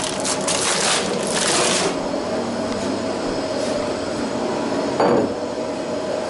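A paper bag of bread crinkling and rustling as hands dig into and tear the bread, for about the first two seconds. After that a steady background hum, with a brief thump about five seconds in.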